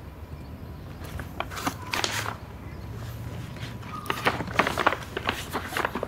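Paper and a printed shopping bag crinkling and rustling as the bag is rummaged through and a paper offering packet is pulled out, in two bouts of handling about a second in and again near the end, over a low room hum.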